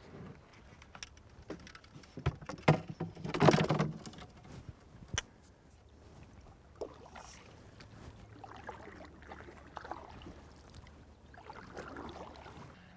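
Canoe paddle strokes swishing through the water. A few sharp knocks and one louder clatter come a few seconds in, as the paddle is handled against the canoe.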